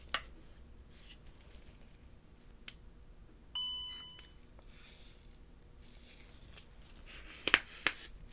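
DJI OM 5 gimbal giving a short electronic chime about three and a half seconds in, as its handle button is pressed to switch it on. The chime is several notes at once that start sharply and fade within about half a second. Light handling clicks come before it, and near the end two sharp clicks, the loudest sounds, come from the folding gimbal arm being moved.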